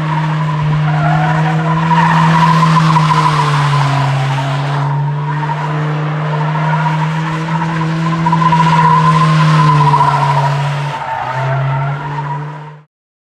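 Nissan Hardbody D21 pickup doing donuts on its welded rear differential: the engine held at high revs while the rear tires squeal and skid. The sound cuts off abruptly near the end.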